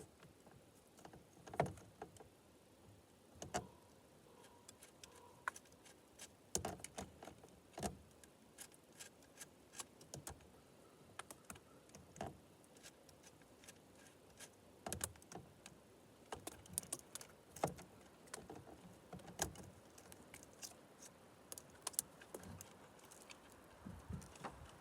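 Scattered metallic clicks and light clinks of a chainsaw chain, bar and small parts being handled while the chain is fitted to a top-handle battery chainsaw, at irregular intervals.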